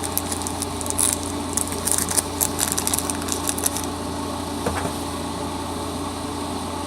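Close-up crunching as a chocolate-covered cherry candy with chopped peanuts is bitten and chewed, quick crisp crackles for the first four seconds or so, over a steady low hum.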